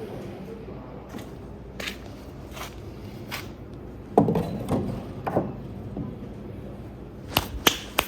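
A handful of scattered knocks and clicks, with one heavier thump about four seconds in and two sharp clicks near the end, over a low steady hum.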